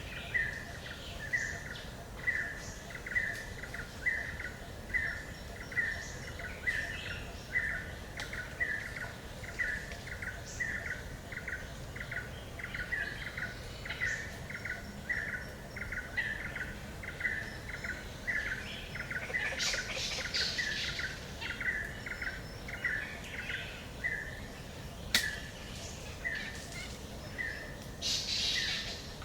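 Forest ambience of birdsong: one bird repeats a short, even call just under twice a second, while other birds chirp higher and more sparsely. The higher chirping thickens briefly twice, about two-thirds of the way through and near the end, over a steady low background rumble.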